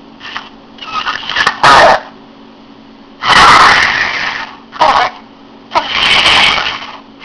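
A person snoring heard over a phone call: loud, rough snores about every two to three seconds, with shorter, weaker breaths between them, over a steady low hum.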